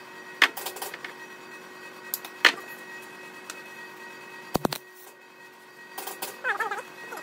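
Sharp clicks and knocks as a MIG welding gun is handled and set against a steel rod frame on a steel workbench, over a steady electrical hum. Near the end there is a short wavering voice-like sound.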